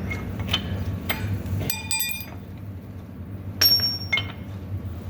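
Metal engine parts and hand tools clinking and knocking as they are handled, with a ringing metallic clang about two seconds in and a louder, higher-pitched ring more than halfway through, over a low steady hum.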